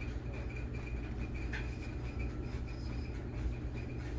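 Faint handling noise from the unboxing: a couple of light clicks, about a second and a half in and near the end, over a steady low hum and a faint high whine.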